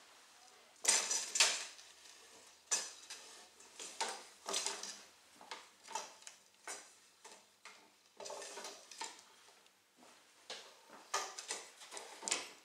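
Wooden struts and wing frame of a kite replica knocking and rattling as they are handled and set down on another wing: irregular clattering knocks, the loudest about a second in.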